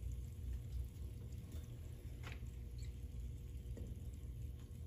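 Faint tabletop handling over a low steady room hum: baking soda shaken from its cardboard box through a funnel into the model volcano, a short knock a little before halfway, and vinegar starting to pour in near the end.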